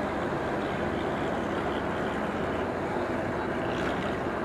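A passenger ferry's engines running steadily while the boat is underway, an even noise without breaks.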